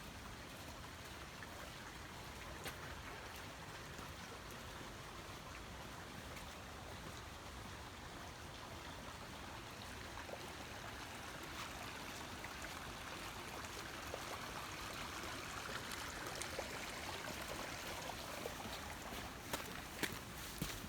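Mountain stream rushing, a steady watery hiss that grows a little louder over the second half. A few sharp ticks near the end, likely footsteps on the trail.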